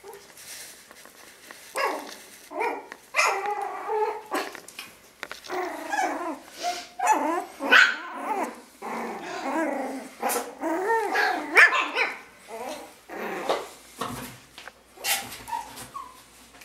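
One-month-old Yorkshire terrier puppies yapping and growling in play, a string of short yips and growls one after another starting about two seconds in.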